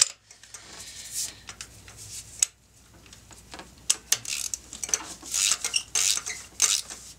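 Irregular metal clinks and clicks of a ratchet, extension and spark plug socket being fitted and worked in an engine's spark plug wells to take out the old plugs. The clicks come singly at first and cluster more densely toward the end.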